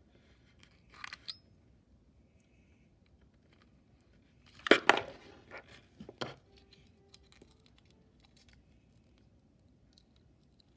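Thin plastic water-bottle pieces being handled and pressed together, giving a short burst of crinkly clicks near the middle and a few single clicks after it.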